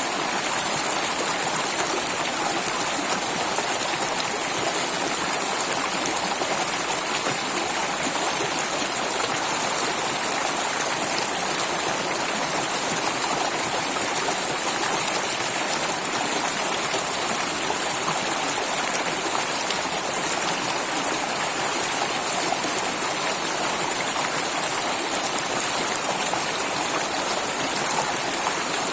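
Water flowing in a stream, a steady, even rush with a bright hiss and no change in level.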